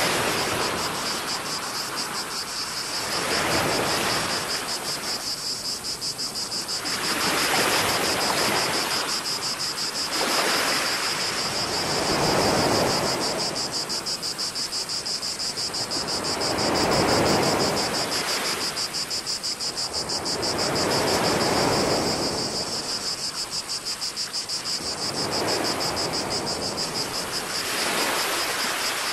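Small waves wash in and draw back every few seconds, over a steady high buzzing chorus of cicadas.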